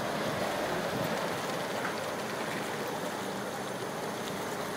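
Jacuzzi jets churning the water in a boat hull made into a hot tub: steady bubbling and splashing.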